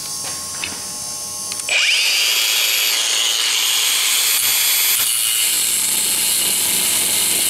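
Cordless Makita angle grinder starting up about two seconds in with a rising whine, then running steadily and loudly as it grinds an aluminum boat's seat-bracket rivets flush. Before it starts, a steady electric buzz from an overhead shop light.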